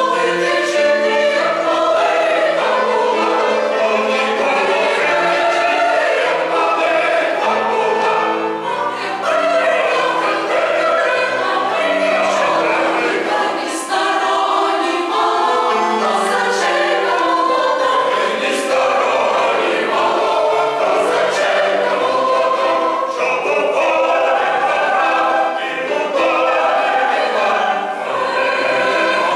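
Mixed choir of men's and women's voices singing a Ukrainian folk song in full voice, several parts at once.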